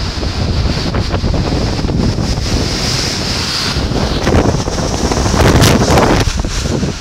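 Typhoon wind blowing hard with driving rain, the gusts buffeting the microphone. The wind swells to its strongest about four seconds in and again about five and a half to six seconds in.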